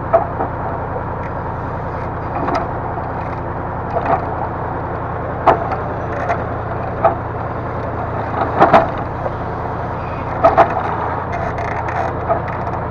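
Diesel engine running steadily under a hydraulic timber loader crane, with sharp wooden knocks as logs strike one another while being handled. There are about a dozen knocks, the loudest a cluster around two-thirds of the way through.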